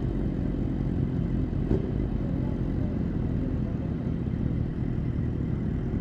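Several sport motorcycles idling together, a steady low engine rumble, with a short click a little under two seconds in.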